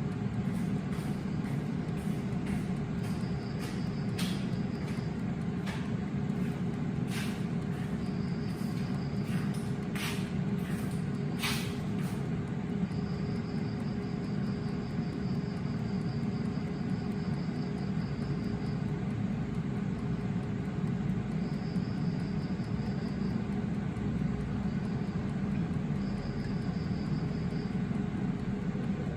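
Air fryer running with a steady fan hum, a faint high whine coming and going, and a few light clicks.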